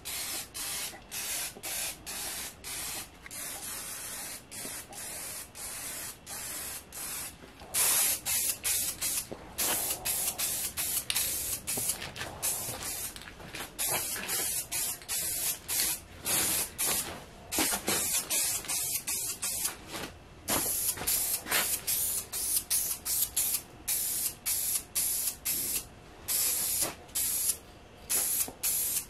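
Aerosol spray can of automotive clear coat spraying in many short hissing bursts with brief gaps between them, louder from about eight seconds in.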